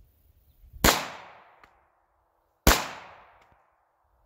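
Taurus TH9 9mm pistol fired twice, shots nearly two seconds apart, each followed by a fading echo. The pistol cycles its standard-power handloads.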